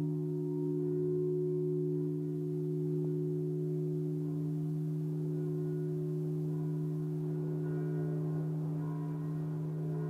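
Large church bell humming on after being struck: a strong low tone with two higher tones above it, slowly dying away.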